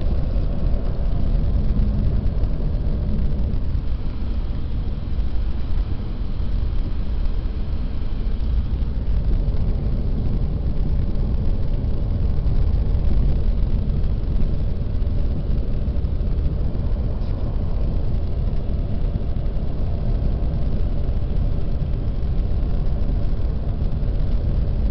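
A car driving: a steady low rumble of engine and road noise with faint engine tones, unchanging throughout.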